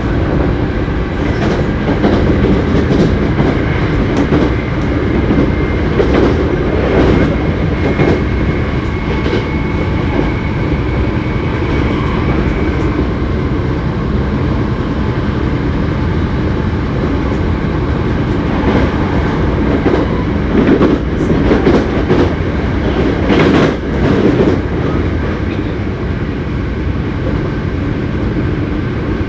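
Running noise inside a Hankyu 7300 series electric train car at speed: a steady rumble of wheels on rail with faint steady motor tones, and a few sharp knocks from rail joints, the heaviest near the end. The car is one known for an unusual running noise.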